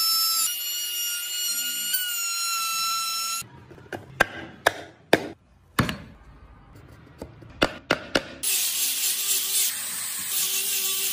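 Handheld trim router running with a steady high-pitched whine while cutting into wood, stopping about three and a half seconds in. A series of sharp knocks follows, then a steady hiss near the end.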